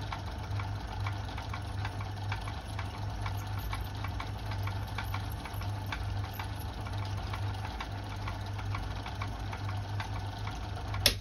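Myford ML7 lathe running with a steady hum and regular light ticking while a 1/8 in reamer works in the bore of a spinning part. A couple of sharp knocks near the end.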